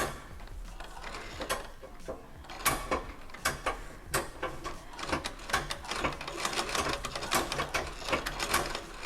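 Vintage Singer 128K treadle sewing machine clicking and rattling as its treadle is worked to wind the bobbin. The clicks come irregularly at first, then faster and steadier from about halfway through, as the treadle is pumped unevenly.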